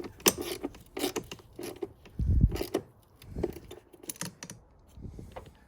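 Socket wrench clicking and knocking as the bolt of a car battery's hold-down clamp is tightened. The clicks come irregularly, with a heavier thump about two seconds in.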